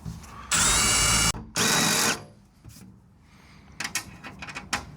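Power drill boring holes through the sheet metal of a van door: two short bursts of the motor whining at speed as the bit cuts through, followed by a few small clicks near the end.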